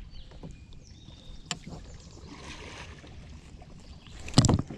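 Handling noise in a plastic kayak as a bluegill is laid on a fish measuring board: small clicks over a quiet background, one sharp click about a second and a half in, and a louder knock against the hull near the end.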